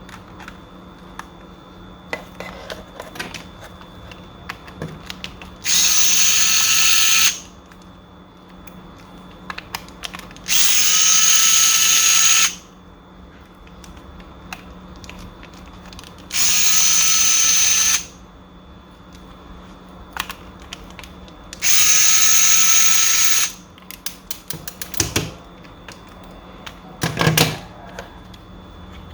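Small electric screwdriver run in four short spurts of about one and a half to two seconds each, a steady whine, backing out small screws. Light clicks and taps of small parts being handled come between the runs.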